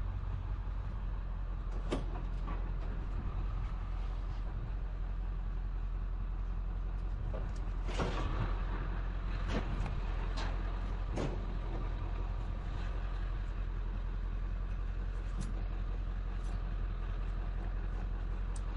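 A motor vehicle running with a steady low rumble, with scattered clicks and knocks, several of them close together around the middle.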